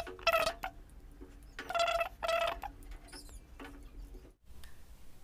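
Four short, squeaky animal chirps, each under half a second and held at one steady high pitch.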